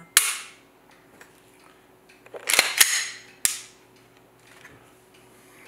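Sharp metallic clicks from a Glock 17 Gen 5 pistol being dry-fired: the trigger breaks on an empty chamber just after the start and again about three and a half seconds in. Between them comes a quick double click of the slide being worked to reset the striker.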